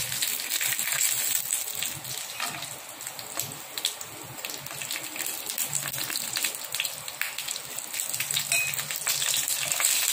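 Whole spices (dried red chillies, bay leaf, fennel seeds, cashews) sizzling and crackling in hot oil in a frying pan as they are tempered, stirred with a slotted spoon.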